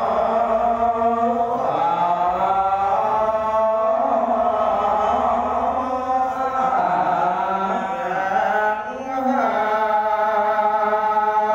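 Khmer Buddhist monk chanting a dharma text from the Vinaya in a melodic, sung style into a microphone, with a short break for breath about nine seconds in.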